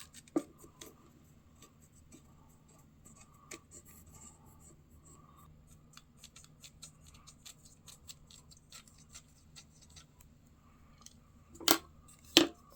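Faint scratching and small ticks of a marking tool tracing a knife's outline onto a wooden handle scale, with two sharper knocks near the end.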